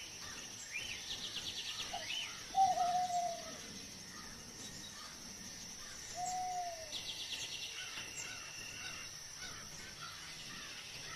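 Background birdsong: short rising chirps, a fast trill twice, and a lower falling whistle twice, over a steady high-pitched drone.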